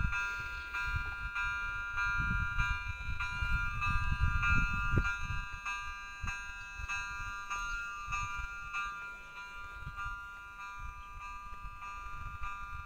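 Level-crossing warning bell ringing in a quick, steady repeat, several high electronic tones sounding together: the crossing's warning that a train is approaching. Wind buffets the microphone with a low rumble, strongest in the first half.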